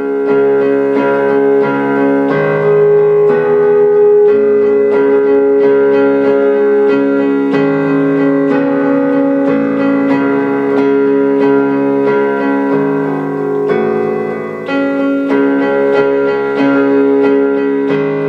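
Electric keyboard music: held chords that change every second or two.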